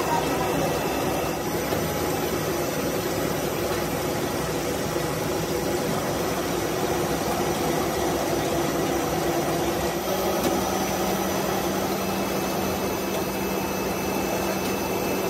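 Steady running noise of a plastic pipe extrusion line, with a caterpillar haul-off drawing the pipe between its tracked belts. A low steady hum joins about ten seconds in.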